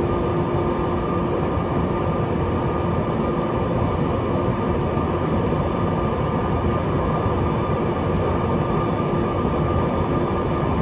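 Cessna 208 Caravan's Pratt & Whitney PT6A turboprop engine and propeller running at low taxi power, heard from inside the cockpit. A steady drone with a constant hum that does not change.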